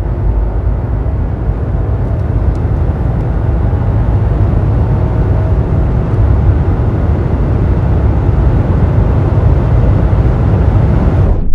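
Cabin sound of a BMW G30 520i's B48 2.0-litre turbocharged four-cylinder under hard acceleration in fifth gear, a steady low drone heavy with road and wind noise that grows slightly louder as speed climbs. It cuts off abruptly at the end.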